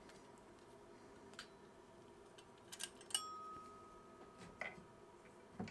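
Small handling clicks and taps from an antique brass-cased ammeter being taken apart by hand. About three seconds in, a sharp metallic click leaves a clear ringing tone that lasts about a second and a half.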